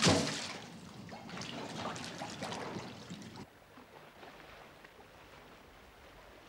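Wet ox hide hauled through oak-bark tanning liquor in a tan pit: liquid splashing, pouring and dripping, loudest at the start. About three and a half seconds in it cuts off to near silence.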